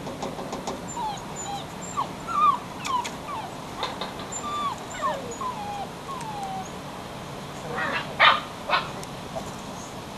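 Belgian Shepherd puppy whimpering: a run of short, high whines, each falling in pitch, several a second. About eight seconds in come two short, sharp, louder sounds.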